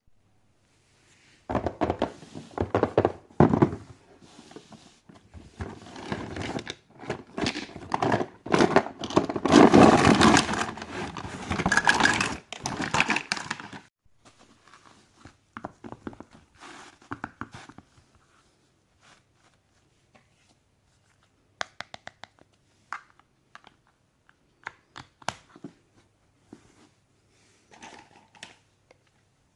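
Packaging being unwrapped: crinkling and tearing for about twelve seconds, then scattered light clicks and taps as small plastic toy pieces are handled.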